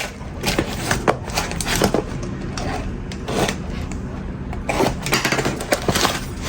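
Irregular clicks, taps and short scrapes of metal Zippo lighters and their packaging being handled.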